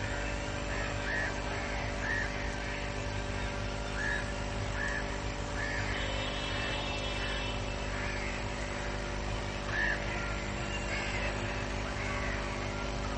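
A steady low machine hum, with short high chirps every second or so above it.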